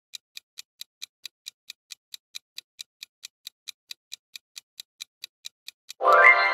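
Clock-style ticking of a quiz countdown timer sound effect, even ticks about four and a half a second, marking the time to think. Near the end the ticking stops and a loud pitched tone sweeps upward and rings on.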